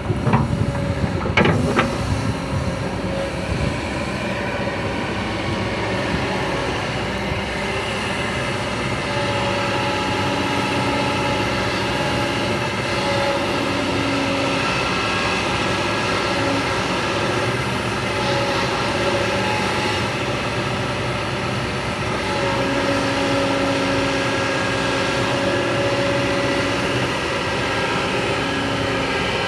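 Excavator running: a steady engine sound with whining tones that come and go. A few knocks in the first couple of seconds.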